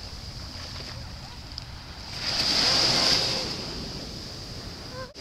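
Small surf washing onto the beach, one wave swelling and fading away about halfway through, over a low rumble of wind on the microphone.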